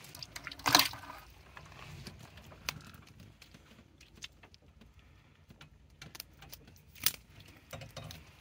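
Handling noises as a live bluegill is taken in hand in an aluminum boat and rigged on a hook: a loud, wet clatter a little under a second in, scattered small clicks and taps, and a sharp knock about seven seconds in.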